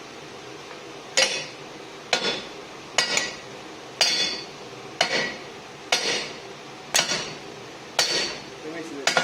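Hand hammer striking steel about once a second, nine ringing metallic blows, knocking a stuck piece free from the forged hammer head.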